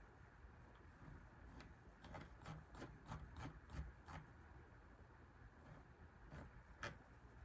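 Faint typing on a computer keyboard: a quick run of keystrokes about two seconds in, then a couple of single key presses near the end.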